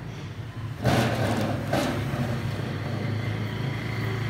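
A motor vehicle engine running steadily as a low hum, getting louder about a second in, with two short louder noises about a second apart.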